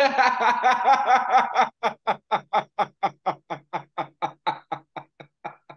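Men laughing together. After a couple of seconds, one laugh carries on alone as an even run of short breathy pulses, about five a second, that fade away.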